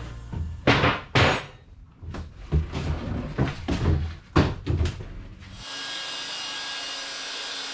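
Wooden floor panels knocking and clattering as they are lifted and moved, a string of sharp wooden knocks. About five and a half seconds in this gives way to a shop vacuum running steadily.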